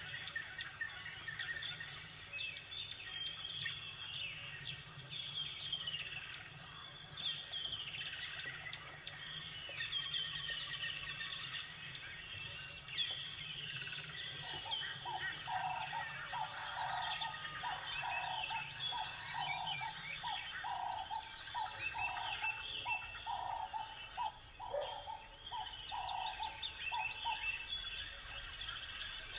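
Many small birds chirping and singing together, with a lower call repeated about twice a second through the second half.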